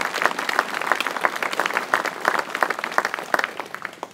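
An audience applauding: dense, steady clapping that stops abruptly near the end.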